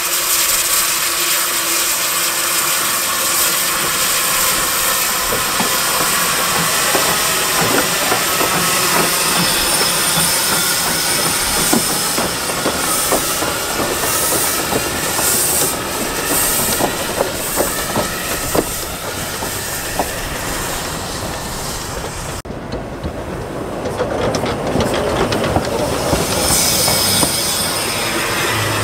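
Narrow-gauge NGG16 Garratt steam locomotive moving slowly: a steady hiss of steam, with wheels clicking over the rails and squealing at times. The high hiss drops away suddenly about three-quarters of the way through, then builds again.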